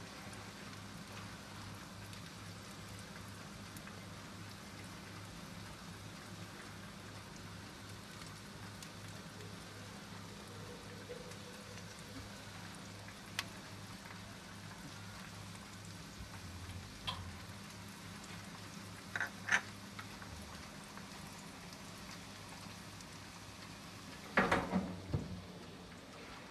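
Countertop electric oven running with a steady hiss and low hum while oil is brushed onto chicken wings on the hot tray, with a few light clicks along the way. About 24 seconds in, a short clatter of metal comes as the tray and oven door are handled.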